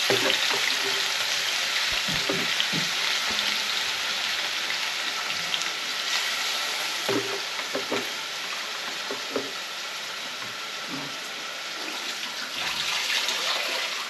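Wet collard greens sizzling in hot oil in a pot as they are spooned in and stirred: a steady hiss that slowly dies down, with a few knocks of the spoon against the pot.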